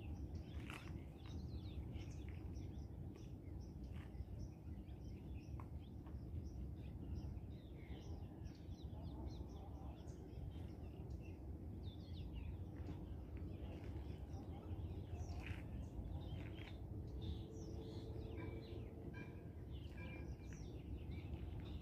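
Wild birds chirping and calling in short scattered notes, with a quick series of repeated short notes near the end, over a steady low background rumble.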